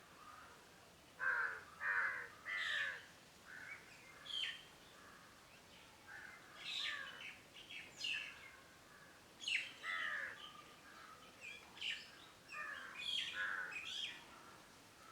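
Several birds calling, with short repeated calls and chirps coming every second or so over faint background noise.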